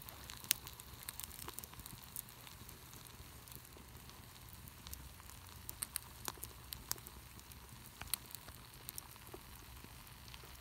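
Wood campfire crackling faintly: scattered, irregular pops and snaps over a soft hiss.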